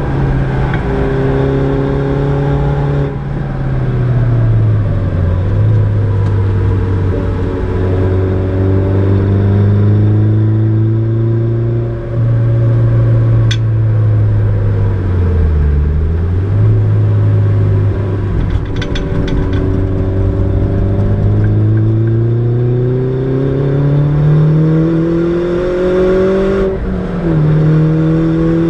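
Mini John Cooper Works R56's turbocharged 1.6-litre four-cylinder engine, heard from inside the cabin while driven hard on track. Its pitch rises and falls repeatedly with throttle and gear changes: two low dips, then a long climb near the end that drops off as the gear changes. A few brief sharp clicks can be heard around the middle.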